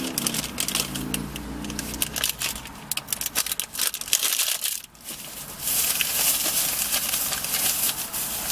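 Crackly crunching and crinkling from eating protein cookies out of a snack bag, heard close up: dense sharp clicks for the first few seconds, then a steady rustling hiss from about six seconds in.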